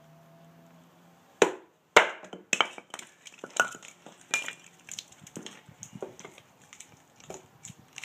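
Two loud sharp knocks about half a second apart as a walnut baton drives a Becker BK2 knife through a spruce log and the log splits, followed by a run of lighter wooden clacks and knocks as the split pieces are picked up and handled on a wooden block.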